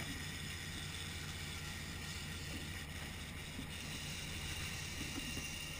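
A sportfishing boat's engines running steadily, a low even hum under a steady hiss of wind and water.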